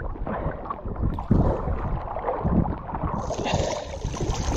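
Wind rumbling irregularly on a GoPro's microphone while a kayak is paddled on open water, with a brighter hiss joining about three seconds in.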